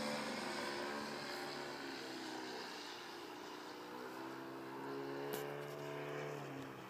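Engine and propeller of a radio-controlled Sukhoi aerobatic model plane in flight. The engine note falls in pitch and fades as the plane draws away, then rises and grows louder again about four seconds in.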